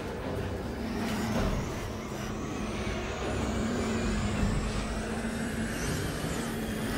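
Sound effects of a blizzard storm front: steady rushing wind with a deep rumble underneath and a low hum held throughout.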